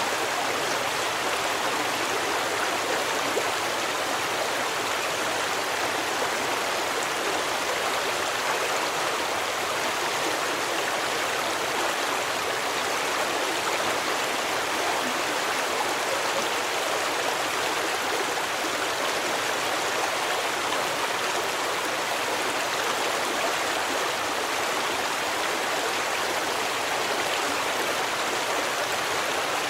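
A forest stream running steadily, water rushing and splashing over rocks without a break.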